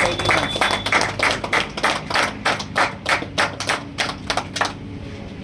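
People clapping after an award is announced, a patter of separate claps that dies away near the end.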